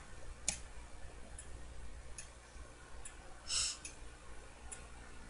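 Faint, scattered clicks of a computer mouse, about five of them spread over the seconds, over a low steady hum. A short soft hiss comes about three and a half seconds in.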